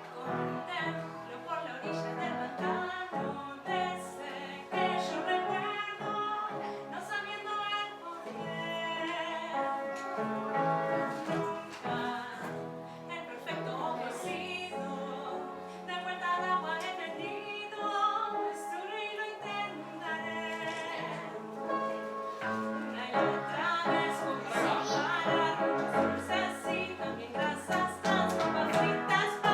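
A song: a singing voice over instrumental accompaniment.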